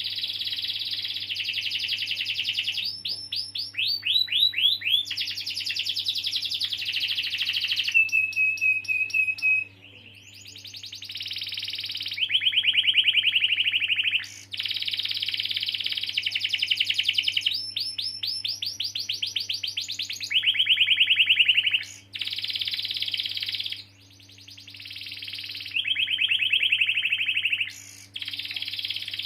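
Domestic canary in full song, delivering long rolling trills: fast runs of repeated notes that switch to a new phrase every second or two, with a short steady whistled note about eight seconds in.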